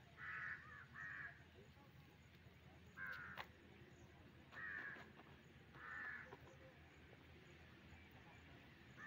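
A crow cawing: five faint, short caws at irregular intervals, two close together at the start, then three more spread through the rest.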